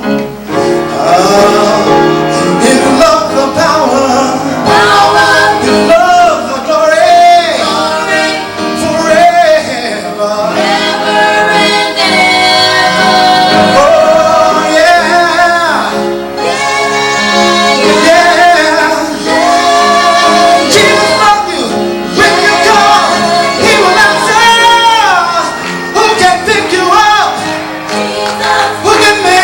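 Gospel music: voices singing long held notes that slide and waver in pitch over a steady accompaniment.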